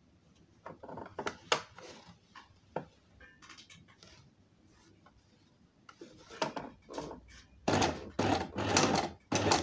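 Fabric and an invisible zipper being handled against a sewing machine: scattered soft taps and rubs, then a few seconds of louder rustling near the end.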